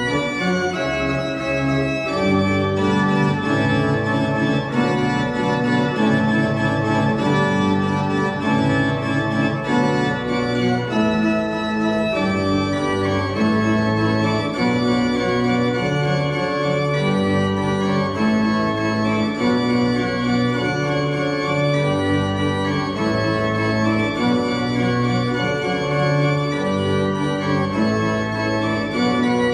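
The 1721 Baroque pipe organ built by Johann Josua Mosengel of Königsberg is playing a piece. It holds full sustained chords that change about once a second over a moving bass line.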